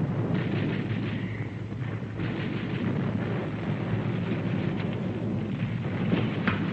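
Battle sound effects on an old film sound track: a continuous rumble of artillery fire and explosions, with no single blast standing out.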